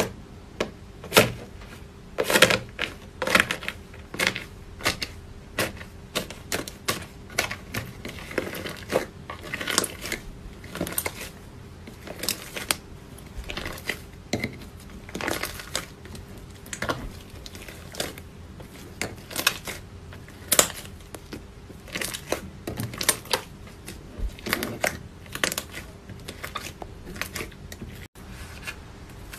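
Slime being squeezed and pressed by hand in a bowl, giving a steady, irregular run of sticky crackles and popping clicks, several a second.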